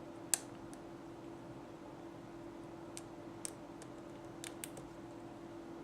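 Faint metallic clicks and ticks of a lock pick and tension wrench working the pin stack of a 5-pin mortise lock cylinder during picking: one sharper click just after the start, then a few scattered lighter ticks, over a steady faint hum.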